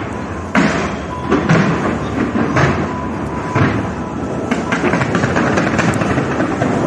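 Fireworks display: loud shell bursts about once a second over a continuous rumble and crackle of further explosions.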